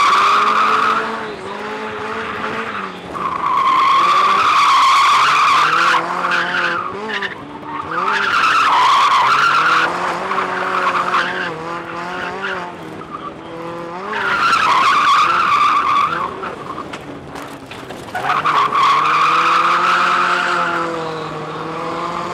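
Drift car sliding: tyres squealing in about five long stretches while the engine revs up and down between and under them, heard from a camera mounted on the car.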